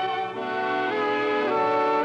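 Orchestral closing-theme music with brass: a run of held chords that change about twice a second.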